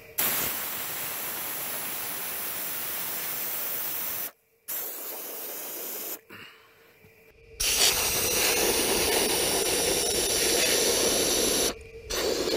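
Aerosol can of wasp and hornet foam spraying into a ground wasp nest in long hissing bursts: one of about four seconds, a short quieter one, then another of about four seconds, and a last one starting near the end.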